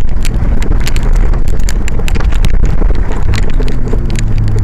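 Off-road 4x4's engine running under load as it drives along a muddy, rutted track, with many sharp rattles and knocks from the vehicle jolting over the ruts. Wind buffets the microphone, and the engine note swells near the end.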